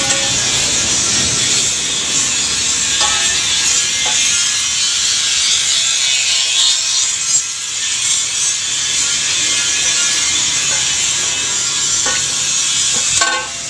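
Steady scraping and rubbing of a galvanised hollow steel pipe frame dragged over concrete and then dirt.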